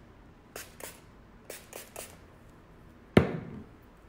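Fine-mist setting spray (Farmasi Time Locker) spritzed in short hissy puffs, two and then three in quick succession. About three seconds in comes a single sharp knock, the loudest sound, with a brief low ring after it.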